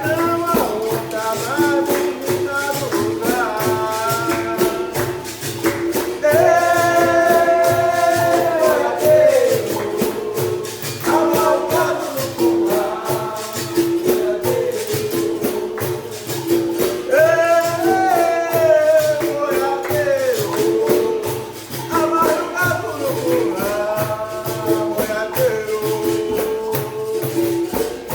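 Capoeira roda music: a voice sings a capoeira song with long held notes over a steady pandeiro jingle and the berimbau's repeating note.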